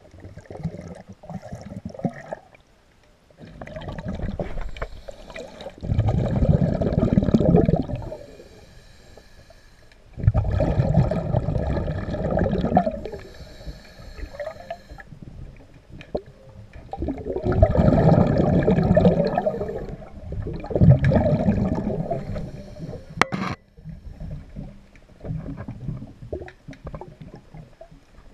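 A diver breathing under water: several long rumbling bursts of exhaled bubbles, with a thinner hiss of the inhale between some of them. A sharp click sounds near the end.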